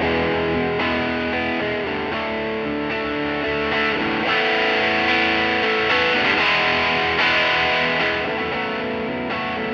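Overdriven electric guitar chords from a Gretsch Electromatic played back by a looper, running through the Bad Cat Siamese Drive overdrive pedal into a Peavey Classic 50 4x10 amp. The overdrive tone changes and grows brighter around the middle as the pedal's knobs are turned.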